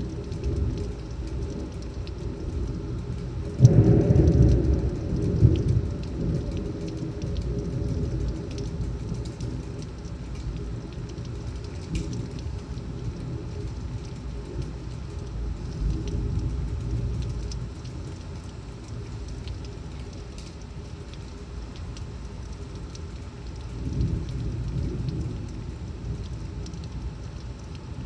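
Heavy rain pouring down steadily in a severe thunderstorm. About four seconds in, a loud clap of thunder breaks and rumbles away over a couple of seconds, and a fainter roll of thunder comes near the end.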